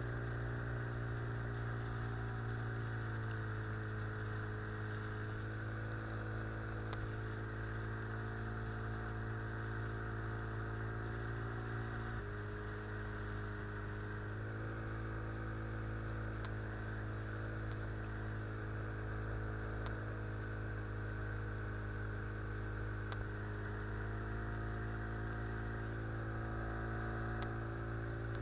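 Outboard motor driving an inflatable boat upriver, running at a steady pitch that shifts slightly a few times.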